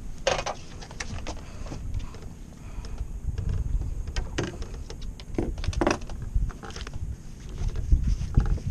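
Fishing tackle being handled on a small boat: irregular clicks and knocks of the rod, reel and jig against the hull, over a steady low rumble of wind on the microphone.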